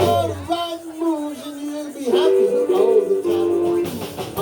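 Live blues band playing, with a lead line of bent, sliding notes over the band; the bass and drums drop back briefly near the start of the passage.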